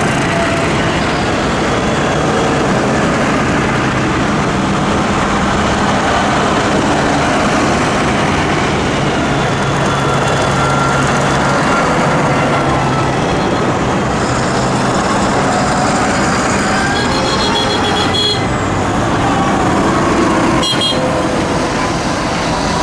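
A procession of diesel tractors driving past one after another, engines running steadily with tyre noise on the wet road. Near the end a lorry hauling an excavator goes by.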